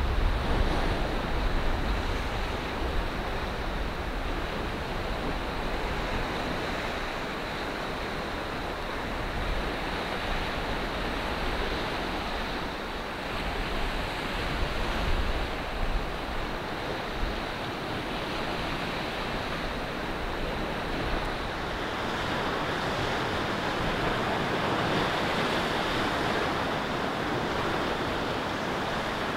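Ocean surf washing steadily against a rocky shore, with wind gusting across the microphone in low rumbles.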